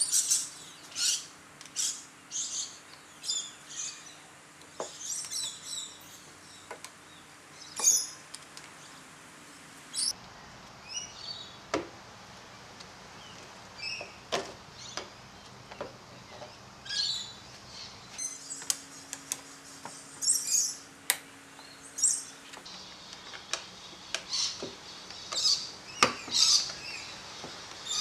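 Small birds chirping in quick, short, high calls, with scattered sharp clicks.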